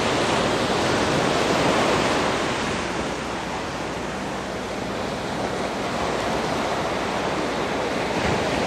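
Surf washing onto the beach: a steady rush of noise that swells, eases off and builds again.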